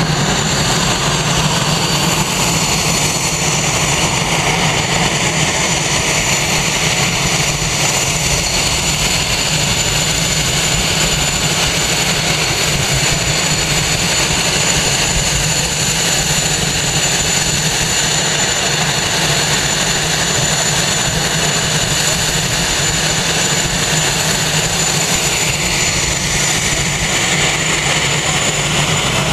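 Northrop F-5E Tiger II jets running their engines at idle while parked: a steady, loud jet whine with high, even tones over a low hum.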